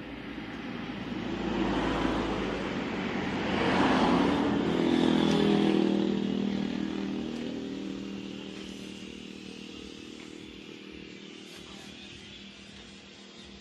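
A motor vehicle, most like a motorcycle, passing by: its engine grows louder over about four seconds, then slowly fades away.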